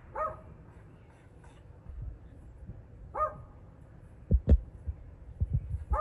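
Three short, bark-like animal calls, about three seconds apart. In the second half come a few low thumps, the loudest two in quick succession.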